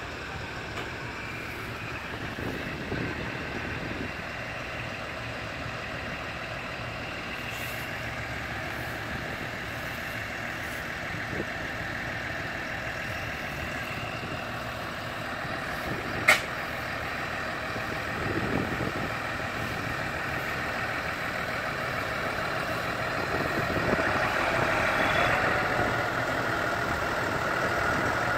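Large farm tractor running, with a high whine that grows louder over the last few seconds. One sharp click about 16 seconds in.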